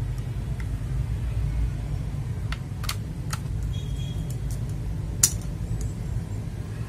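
A few scattered presses of a mechanical keyboard switch with a smoky BBT plastic housing, each a short sharp click, the loudest about five seconds in, over a steady low hum.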